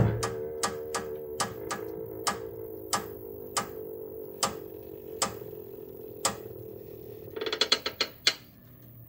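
A floor jack letting a pickup's front end down, with a steady hum that fades slowly. Over the hum come sharp clicks and creaks from the suspension as it settles, about three a second at first and slowing to about one a second. Near the end there is a short clatter, and then the hum stops as the truck comes to rest on the jack.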